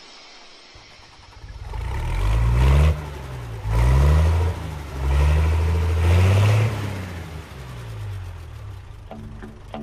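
A vehicle engine accelerating, starting about a second in. Its pitch climbs and drops back several times, as if shifting up through gears, then it fades away over the last few seconds.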